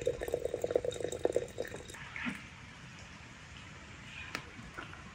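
Liquid pouring or running into a container with a fast gurgling flutter, stopping about two seconds in; a few faint clicks follow.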